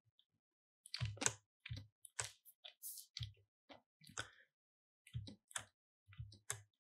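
Faint, irregular clicks and taps from computer input devices at a desk, starting about a second in.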